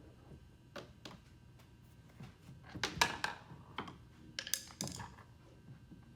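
Scattered clicks, taps and knocks of kayak seat-frame parts being handled and fitted together. There is a denser clatter about three seconds in and another short cluster near five seconds.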